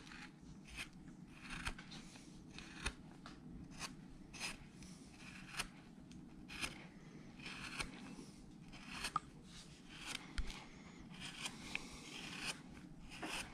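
Small No. 11 carving gouge (veiner) cutting short strokes into wood to texture a carved figure's hair: faint slicing cuts, about one a second.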